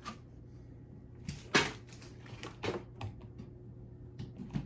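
A few short knocks and clicks from things being handled, the loudest about one and a half seconds in, over a faint steady low hum.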